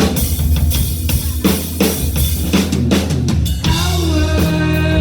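Rock band playing live in an instrumental passage without vocals: the drum kit hits hard and often, with kick and snare up front, over bass and electric guitars.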